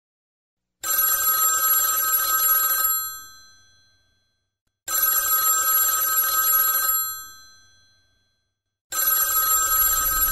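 Bell of a rotary-dial desk telephone ringing three times. Each ring lasts about two seconds and fades out with a ringing tail, with about two seconds of silence between rings; the third ring is cut off short.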